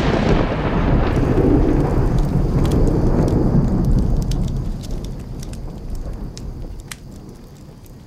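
A long roll of thunder, loudest at the start and dying away over about five seconds. As it fades, faint crackles of a wood fire come through.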